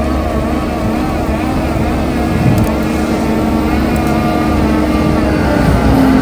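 Bobcat skid steer's diesel engine running steadily under load, driving a Coneteks 2.13M hydraulic stump-grinding attachment. There is a deep rumble and a steady drone, with a whine above it that wavers slightly in pitch.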